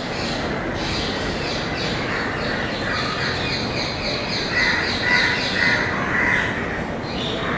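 Birds calling repeatedly with short squawking calls, clearest in the second half, over a steady background hiss of outdoor city ambience.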